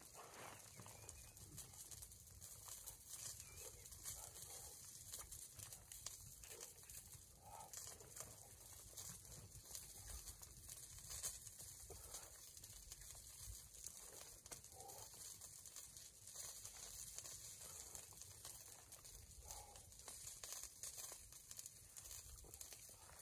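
Near silence: a faint steady high hiss with soft, scattered small sounds of a person eating by hand, chewing and handling the food.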